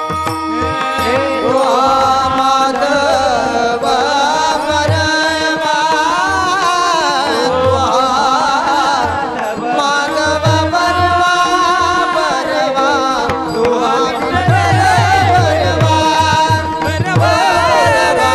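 Male voice singing long, wavering melismatic lines of a Marathi devotional bhajan over a steady sustained drone, with clusters of hand-drum strokes coming in at several points.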